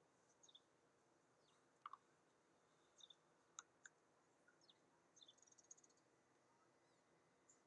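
Faint songbirds chirping, with short, high, falling chirps and a brief rapid trill about two-thirds of the way through. A few sharp clicks come near the middle.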